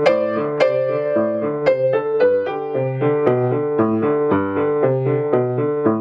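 Acoustic grand piano played loudly: a steady run of even eighth notes in the left hand under right-hand notes, with a few strongly struck accented notes in the first two seconds.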